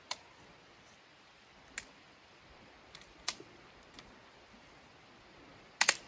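Scattered sharp clicks and snaps, about six in all, from dry wood and a folding camp chair's metal frame being handled. The loudest is a quick double click near the end, as the chair is gripped.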